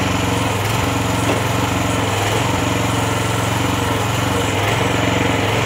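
Kymron RH14G one-ton mini excavator's small gasoline engine running steadily at working speed while the arm digs, its note dipping briefly a few times.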